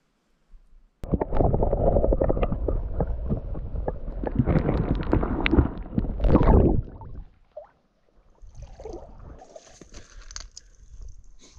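Water sloshing and gurgling around a submerged camera, a loud, muffled churning full of small knocks that starts about a second in and stops after about six seconds; quieter, patchy outdoor sound follows.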